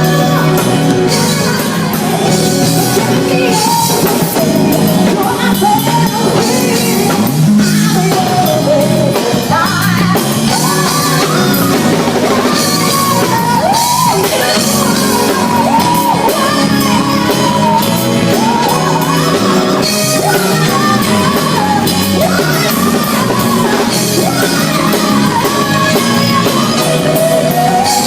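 A live band with a drum kit playing a slow song while a singer hums the melody wordlessly over it.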